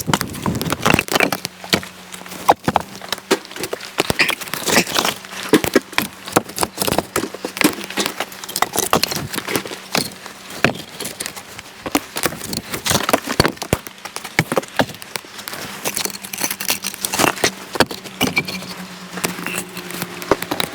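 Split firewood knocking and clattering, piece against piece, in many quick irregular knocks, as it is handled and stacked.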